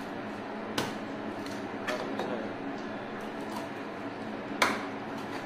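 A large kitchen knife cutting pearl spot (karimeen) into steaks on a wooden cutting board: a few sharp knocks of the blade hitting the board, the loudest about a second in and another near the end.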